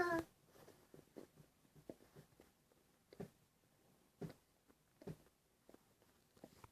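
Quiet room with a few faint, scattered knocks and clicks, the clearest about three, four and five seconds in.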